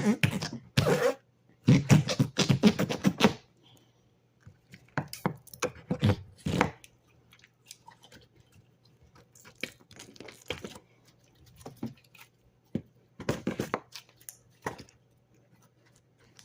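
Flarp noise putty being pushed into its cup, giving off short fart-like noises in irregular bursts, many in the first half and sparser, fainter ones later.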